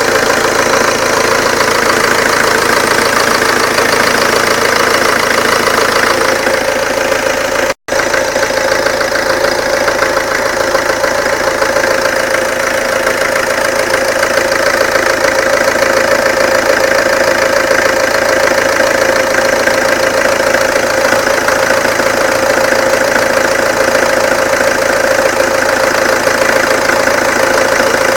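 Peugeot 307 2.0 HDi 90 four-cylinder diesel engine running steadily at idle, making a strange noise that the owner wants identified; a steady tone runs through the diesel clatter. The sound cuts out for an instant about eight seconds in.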